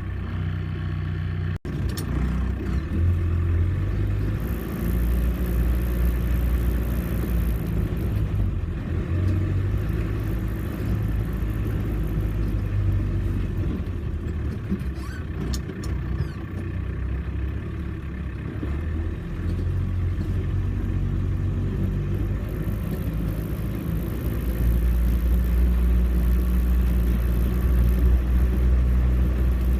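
Off-road four-wheel-drive vehicle's engine running under load, a low rumble whose revs rise and fall and get louder near the end.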